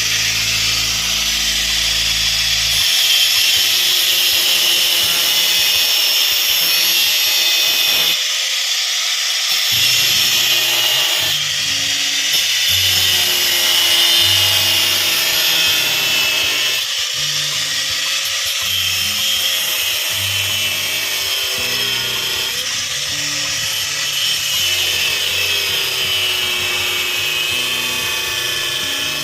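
A power tool running steadily while cutting, its pitch wavering up and down, with background music.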